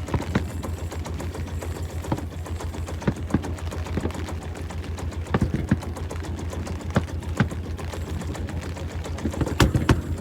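A boat's engine running with a steady, rapid low throb, with scattered sharp clicks and knocks, the loudest about nine and a half seconds in.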